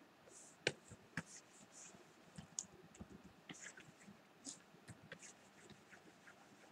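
Faint, scattered clicks and short, light scratching strokes from hands working a computer's drawing controls during digital painting.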